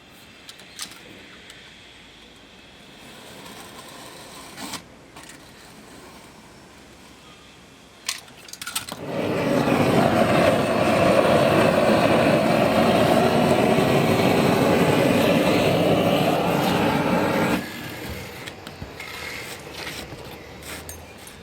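A gas roofing torch burning steadily, heating torch-on bitumen felt. It comes on suddenly about nine seconds in and cuts off sharply about eight seconds later, after a quieter stretch with a few knocks from work on the roof.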